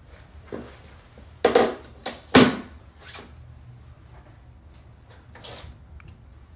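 A few short knocks and bangs, the loudest two about a second apart, as a clear glass bowl is brought down on the wooden floor.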